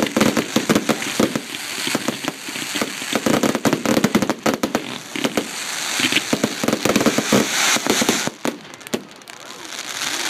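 Aerial fireworks display finale: a dense, rapid barrage of bangs and crackles from bursting shells, thinning into a short lull about eight seconds in.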